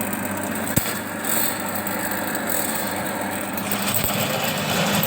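Electric drain-cleaning machine running steadily, its spiral steel cable turning inside a drain clogged with grease that it has only partly broken through. A sharp click a little under a second in and another about four seconds in.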